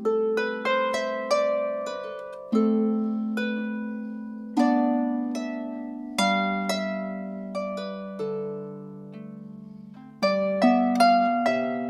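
Harp playing a slow tune: plucked notes and chords ring and fade away, over bass notes that change every second or two.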